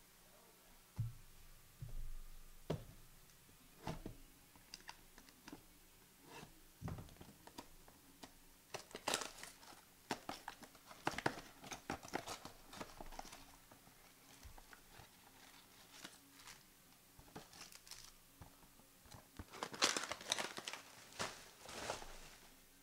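Trading card packs being torn open and their foil wrappers crinkled, with cards handled and slid against each other, in irregular crackly bursts that come thickest about nine to thirteen seconds in and again near the end.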